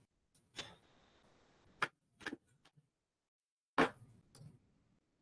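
A handful of short clicks and taps, the loudest about four seconds in, with the call audio dropping to dead silence between them.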